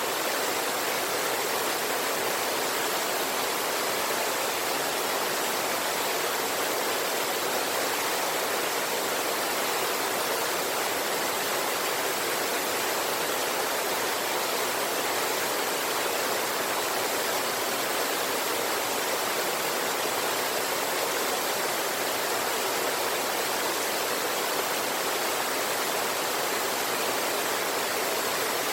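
River water rushing over rocks: a steady, unbroken hiss of flowing water with little deep rumble.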